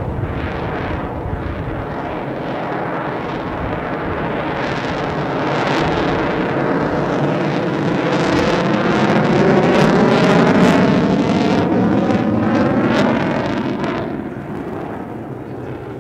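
Lockheed Martin F-22 Raptor's twin Pratt & Whitney F119 turbofan engines in flight as the jet passes overhead. The loud jet noise builds, peaks about ten seconds in, and falls away after about fourteen seconds.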